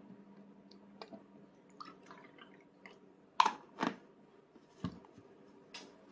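A toddler sipping soup from a plastic two-handled cup: small mouth and cup clicks, then two louder sips about half a second apart halfway through, and a few more short mouth and cup sounds near the end.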